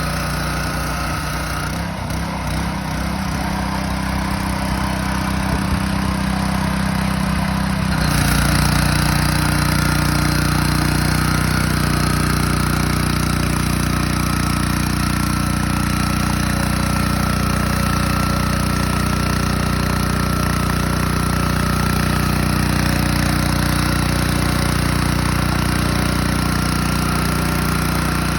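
Honda petrol engine of a pressure washer surface cleaner running steadily just after starting. About eight seconds in the sound shifts and gets a little louder, with a steady higher whine joining the engine note.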